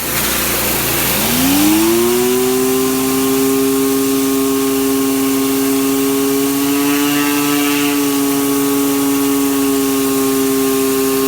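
Pressure-washer surface cleaner spraying concrete: a loud hiss of water jets starts suddenly, and about a second in a whine rises in pitch, then holds steady as the two rotating nozzles spin.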